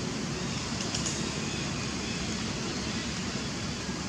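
Steady outdoor background noise, an even rushing hiss with no clear rhythm or pitch, and a faint click about a second in.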